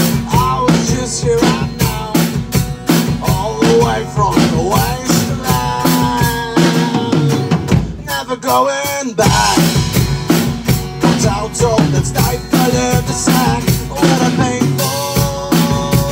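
Rock band playing without vocals: a drum kit keeps a steady beat under a guitar line with bent notes. Around seven to nine seconds in the bass and drum hits thin out, then the full band comes back in.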